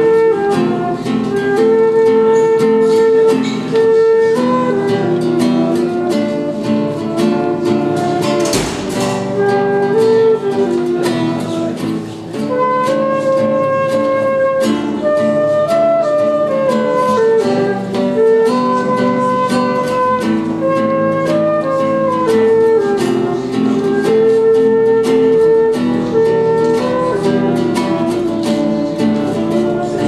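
A live flute and acoustic guitar duet: the flute plays a slow melody of held notes over the guitar's accompaniment.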